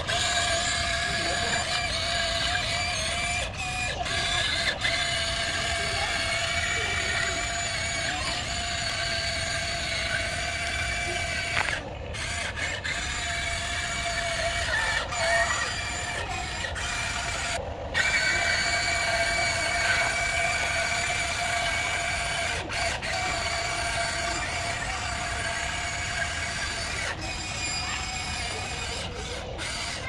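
Huina radio-controlled excavator's electric motors and plastic gear drives whining steadily as it tracks across wet gravel, breaking off briefly twice.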